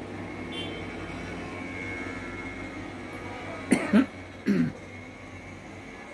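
A man coughing: three short coughs in quick succession about midway, over a faint steady hum.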